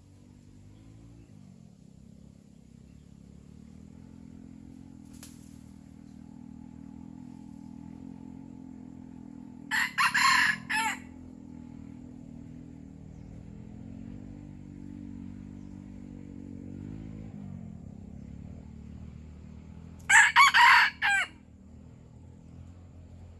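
Red junglefowl rooster crowing twice, about ten seconds apart. Each crow is short and broken into a few clipped syllables, over a low steady hum.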